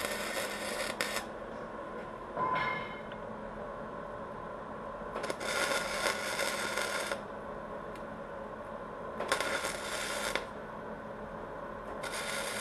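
Electric arc welding on the VW T2's steel gas pedal hinge, crackling in short bursts of a second or two each with pauses of a few seconds between: one ending about a second in, two in the middle, and another starting near the end. The welder judges afterwards that he had the heat set a bit too hot.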